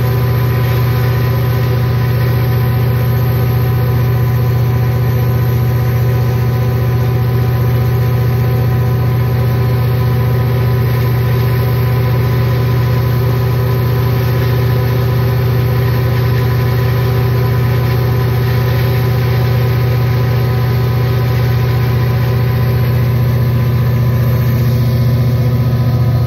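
EMD SD40-2 locomotive's turbocharged 16-cylinder 645E3 diesel prime mover running steadily at full throttle (notch 8) during a load test, a loud, even drone with steady whining tones over a deep hum.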